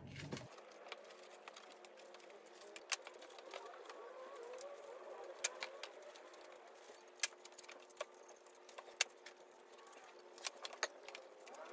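Hand-working a wooden stool frame with sandpaper: faint rubbing, with scattered sharp clicks and taps of hands and tools on the wood.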